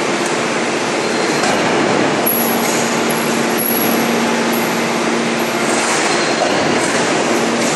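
Large four-column hydraulic forging press working a red-hot steel shaft: a loud, steady mechanical noise with a faint hum, no distinct blows.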